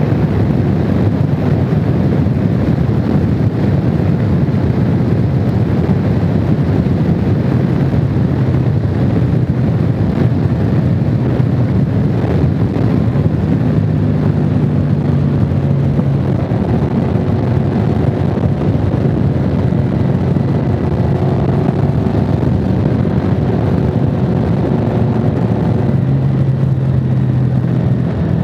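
Honda VFR750's V4 engine running at a steady highway cruise, buried under heavy wind rush on the microphone. The steady engine tone stands out more clearly from about halfway through.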